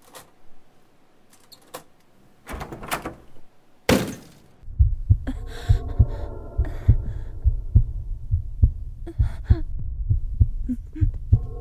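Horror sound effects: a key clicking in a door lock, a short scrape and a loud thud, then a steady heartbeat pulsing under a held droning tone.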